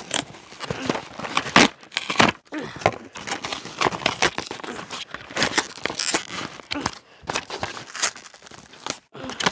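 Toy packaging being crinkled and torn as it is wrestled open, in irregular rustles and sharp crackles.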